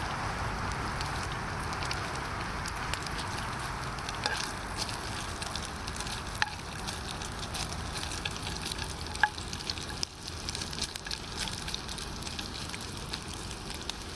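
Smoked bacon sizzling in a frying pan on a camping gas stove, a steady fry peppered with crackling pops. In the second half a cooking utensil moves the rashers about in the pan.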